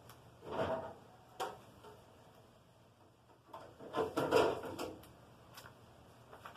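Packaging being handled as a boxed vacuum cleaner is unpacked: two bouts of rustling and scraping, a short one about half a second in and a longer one around four seconds in, with a few light knocks between.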